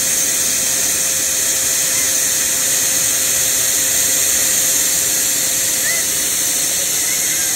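Snow machine's blower running steadily, a loud even hiss with a faint steady hum underneath, as it blows artificial snowflakes over the display.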